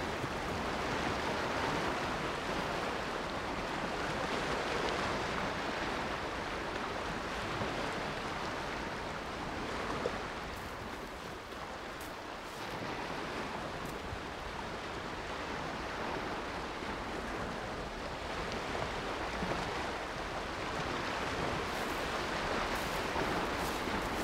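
Sea surf washing in on the shore, a steady wash that swells and eases every few seconds.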